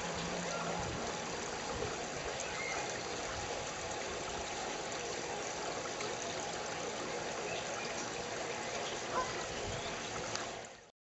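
Water trickling steadily through the wire mesh screen over a lake outlet grille: a weak flow, as the mesh gathers debris and chokes the outlet late in the day after clearing.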